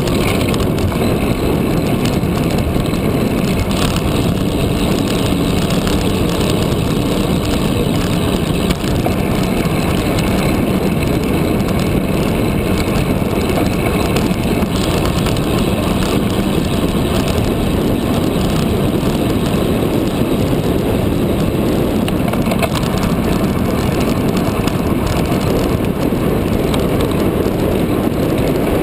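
Steady wind noise buffeting the microphone of a camera mounted on a road bike riding at speed.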